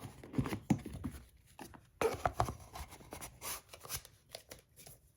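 Cardboard boxes and packaging being handled and moved around: irregular rustling, scraping and light knocks.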